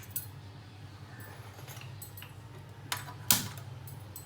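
Kitchen cookware clinking and knocking a few times, the loudest knock about three seconds in, over a steady low hum.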